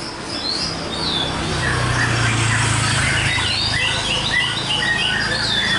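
Many caged songbirds singing and chirping at once at a bird-singing contest, with short overlapping whistled phrases. A steady low hum runs underneath.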